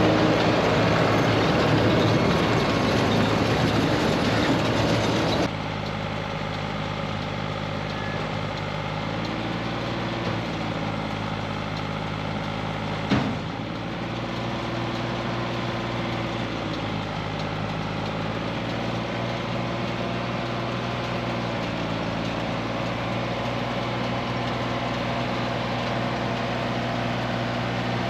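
Tractor engine running steadily while pulling a hay baler. It is louder and noisier for the first five or so seconds, and its pitch dips and recovers a few times under the changing load. There is one sharp knock about thirteen seconds in.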